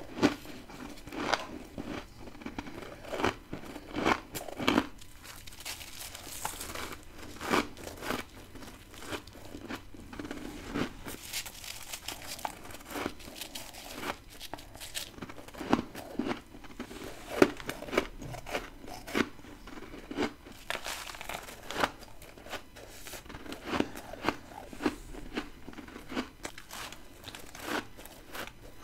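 Close-up bites into frozen humidifier frost scraped from a deep freezer, each bite a sharp crunch with a crinkling crumble after it. The bites come irregularly, about one every second or two.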